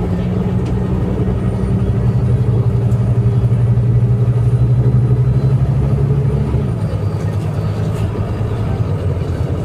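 Scania K310IA articulated bus's diesel engine running under load with a steady low note, growing a little louder, then dropping in pitch and level about two-thirds of the way in. A faint high whine rides over it during the louder part.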